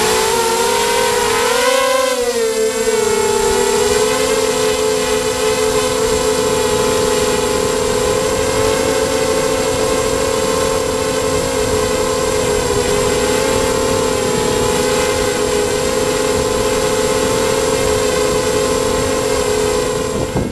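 Emax Nighthawk 250 racing quadcopter's brushless motors and propellers whining steadily in fast, low flight, heard close through the onboard GoPro's microphone. The pitch wavers briefly about two seconds in, then holds level.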